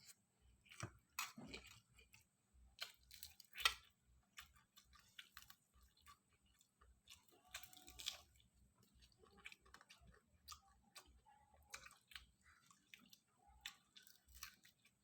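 Faint, close-up eating sounds: a person chewing a mouthful of instant noodles and chicken, with irregular short mouth clicks and smacks.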